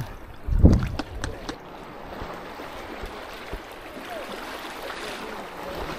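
Strong wind buffeting the microphone over steady water splashing, with a loud low gust under a second in and a few sharp clicks shortly after.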